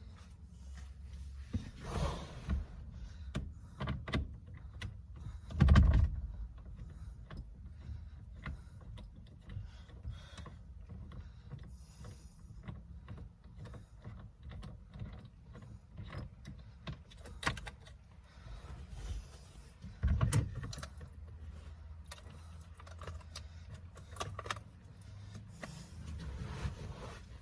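Metal tool and hand-handling noises while the steering wheel is worked off its column. Irregular clicks and clinks run throughout, with two heavier knocks, one about six seconds in and one about twenty seconds in.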